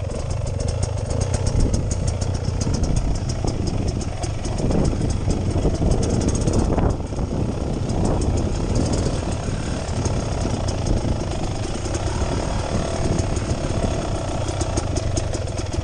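Beta Xtrainer 300 two-stroke single-cylinder dirt bike engine running at low revs, a steady rapid chugging as the bike creeps along off-road.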